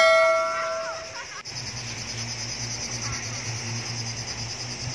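A bell-like chime sound effect rings and dies away in the first second. About a second and a half in, steady high cricket chirring comes in over a low hum.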